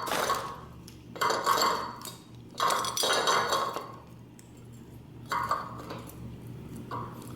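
Small hard parts clinking and rattling as they are handled during disconnection of the old ceiling fan's wiring, in about five short bursts.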